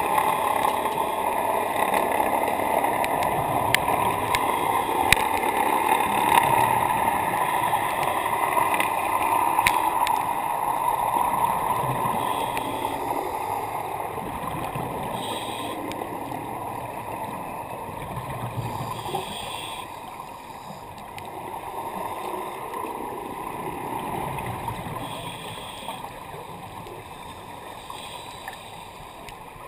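Underwater sound picked up through a dive camera housing: a steady rushing wash that fades gradually through the second half, with a few short bursts of bubbling.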